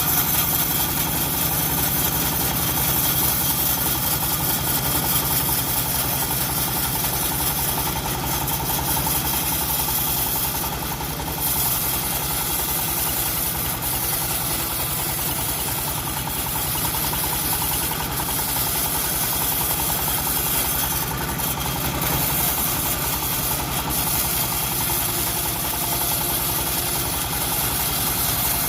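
Engine of a homemade bandsaw sawmill running steadily at an even speed, with a constant high hiss over it.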